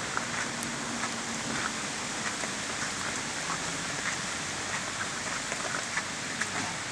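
Steady rain falling, an even hiss dotted with the ticks of individual drops.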